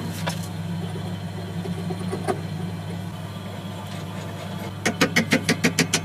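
Electric power-tool motor running with a steady hum. Near the end there is a rapid run of sharp strokes, about six a second.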